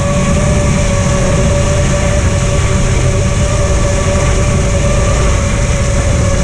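FPV quadcopter's motors whining at one steady pitch over a dense low rumble.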